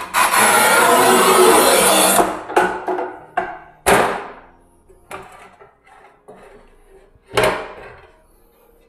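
Montolit Masterpiuma manual tile cutter scoring a large porcelain stoneware tile: the scoring wheel scrapes across the glaze for about two seconds. The tile is then snapped with the breaking foot, with a sharp crack a few seconds in, followed by knocks as the cut pieces are handled, one loud one near the end.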